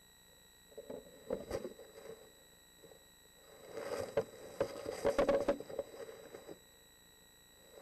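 Eastern screech owl moving about inside a wooden nest box: two bursts of scuffling and scratching, a short one about a second in and a longer one from about four seconds in. A faint steady high tone runs throughout.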